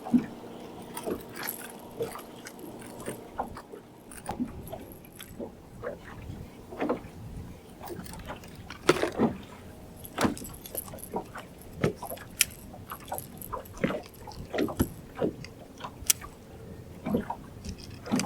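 Scattered, irregular clicks, taps and rattles of fishing tackle and a freshly caught catfish being handled in a boat, over a faint steady hum.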